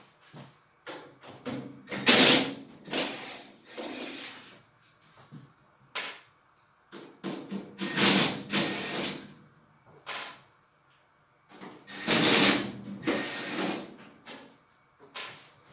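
Cordless drill-driver backing self-tapping screws out of an oven's sheet-metal casing, running in three runs of a few seconds each, starting about two, seven and twelve seconds in.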